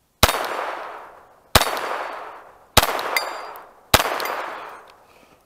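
Four .22 LR pistol shots from a Glock 19 with an Advantage Arms conversion kit, fired at a steady pace about a second and a quarter apart, each followed by a short echo.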